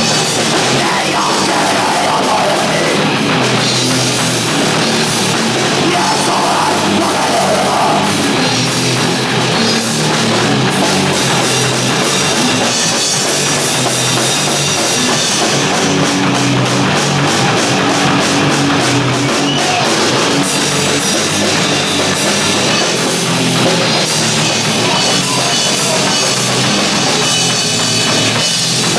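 Punk rock band playing live and loud: distorted electric guitars, bass and a drum kit with steady crashing cymbals.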